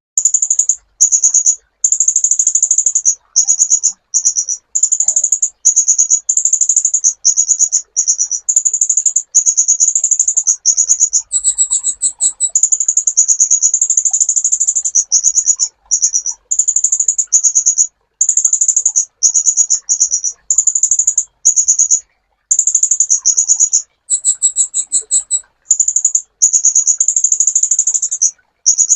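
Kolibri ninja sunbird singing: very high, rapid chattering trills in phrases of about half a second to a second and a half, one after another with short breaks, a few phrases pitched higher than the rest.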